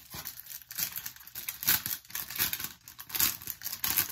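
Plastic packaging bag crinkling irregularly as it is handled and pulled open by hand, with several louder crackles.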